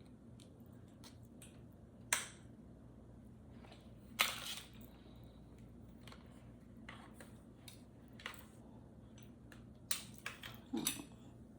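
Scattered clicks and knocks of a desk lamp and its packaging being handled, the loudest about four seconds in and a quick cluster near the end.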